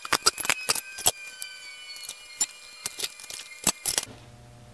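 Sharp, irregular metallic clinks and knocks as a cast iron straight-edge casting is handled and turned over on a steel planer table, with loose metal chips tinkling onto the table and a faint ringing. A quiet low hum starts near the end.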